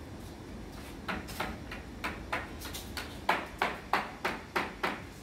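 A hand hammer tapping about a dozen times on the top of a uPVC window frame. The light, sharp knocks settle into about three a second in the second half.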